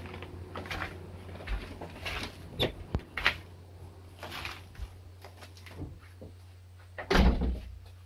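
Footsteps and knocks on a wooden porch, then a door thudding shut about seven seconds in, over a low steady hum.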